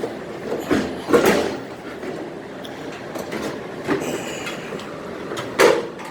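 Sheet-metal panel of a Samsung dryer being lifted off its hooks and worked back out of the cabinet: clanks and metal-on-metal scraping, with a loud knock near the end.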